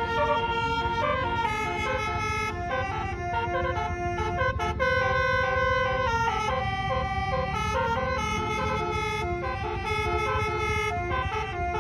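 A basuri musical multi-tone horn on a vehicle playing a melody, its notes changing in steps every fraction of a second, over a low engine rumble.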